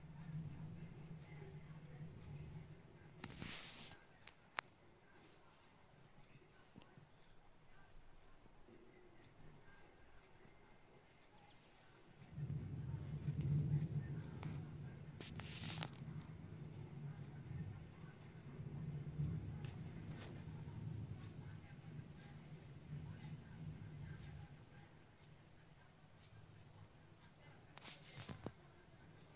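A cricket chirping steadily in a quick, even high-pitched pulse, over a low hum that grows louder for about ten seconds in the middle. Three sharp clicks sound, one near the start, one around halfway and one near the end.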